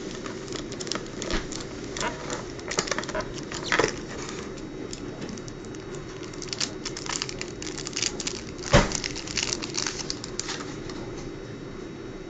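Plastic packaging crackling and clicking as a Nokia BL-5K phone battery is worked out of its moulded plastic tray and handled, with one sharper knock near the nine-second mark.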